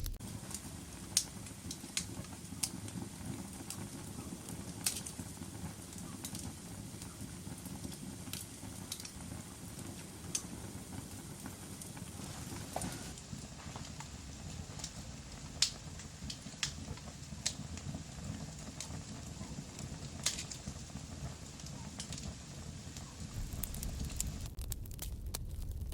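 Fire burning in a fireplace: a steady low rush of flames with irregular sharp crackles and pops, about a dozen of them louder than the rest.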